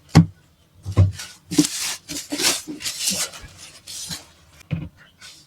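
Rice cooker and its packaging being handled: a few dull knocks, with rustling and rubbing in between.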